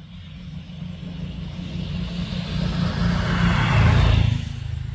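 A motor vehicle passing close by: its noise swells steadily to a peak about four seconds in, then drops away quickly, over a constant low rumble.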